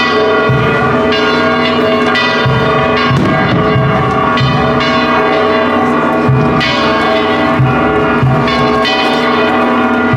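Church tower bells ringing, several bells struck again and again at an uneven pace, their tones overlapping and hanging on.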